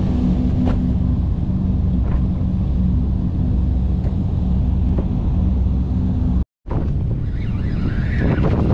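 Low, steady drone of a passing tanker and tug's diesel engines, with wind buffeting the microphone. After a short cut about two-thirds of the way through, the drone gives way to wind noise and water splashing at the boat's side.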